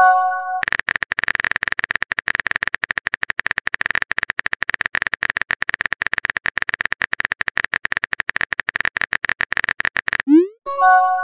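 Message-app sound effects: a short chime, then about nine seconds of rapid, even clicking like a typing sound, ending in a rising pop and a second chime.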